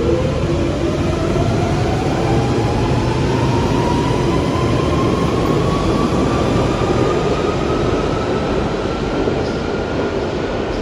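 London Underground Central Line 1992-stock train pulling out of an underground station. Its traction motors give a whine that climbs steadily in pitch as it gathers speed, over the rumble of wheels on the rails.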